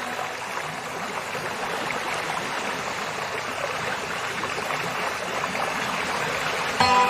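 Water flowing in a stream, a steady, even hiss. Near the end, soft music with held tones comes in over it.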